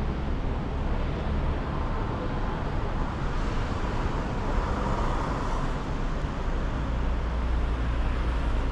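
Steady drone of a moving vehicle's engine with a low rumble of motion noise.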